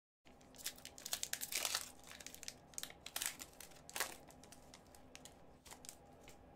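Foil wrapper of an Upper Deck hockey card pack crinkling and tearing as it is ripped open by hand: a run of sharp crackles, loudest in the first couple of seconds and again about four seconds in.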